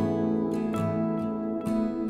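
Instrumental background music led by plucked and strummed acoustic guitar chords.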